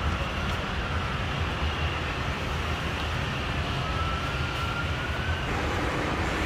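Steady low rumble and hiss of an observation-tower ride carrying its open-sided cabin upward, with a faint whine that rises slowly in pitch about four seconds in.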